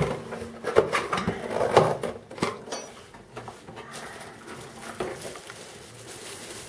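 Cardboard box and the wrapped gimbal being handled: an irregular run of scrapes, taps and rustles, busiest and loudest in the first half, then quieter.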